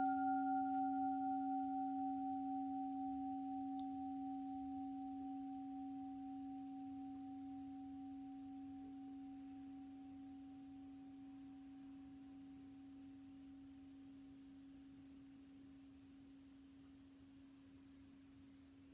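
Large singing bowl ringing on after a single strike and fading slowly. A low steady hum carries a fainter higher overtone, a still higher overtone dies away within the first few seconds, and the tone wavers gently as it decays.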